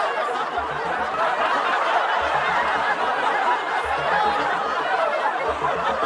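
A party crowd chattering and laughing continuously, with no single voice standing out. Under it, a low bass pattern from party music repeats about every second and a half.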